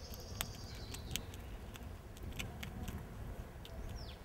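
Coypu gnawing on a lollipop and its plastic stick, its teeth making scattered sharp clicks and crunches. A thin high whistle sounds for about the first second, and a short falling whistle comes near the end.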